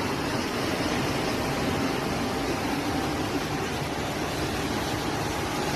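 Fast-flowing floodwater rushing: a steady, even noise of churning water.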